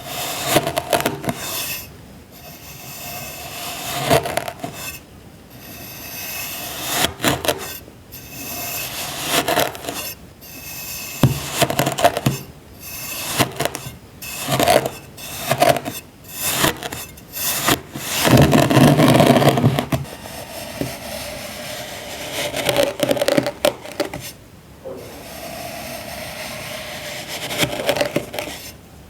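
Compacted sand being cut and crumbled with a tool: repeated crunching, scraping strokes with short pauses between them, and a longer, louder stretch of crunching about two-thirds of the way through.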